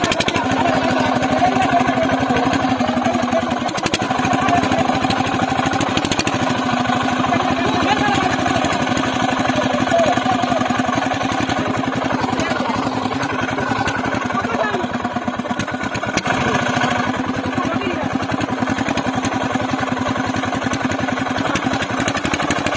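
Petter stationary diesel engine running steadily with a fast, even beat, men's voices calling over it now and then.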